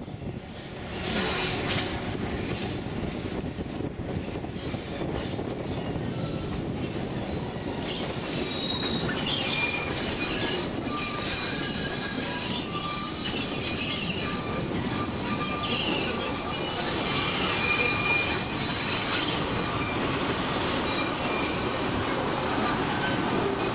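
Narrow-gauge tourist train running under a steady rumble, its wheels squealing in high thin drawn-out tones on the rails from about eight seconds in, coming and going.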